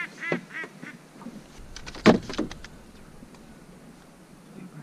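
A quick run of duck quacks in the first second or so, then a sharp knock about two seconds in, followed by a weaker one.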